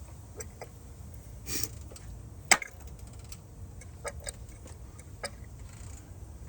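GM 2.4 L dual-overhead-cam four-cylinder engine running with an irregular ticking knock from the valvetrain, which the owner takes for one cam or valve hitting hard. One sharper, louder click comes about two and a half seconds in.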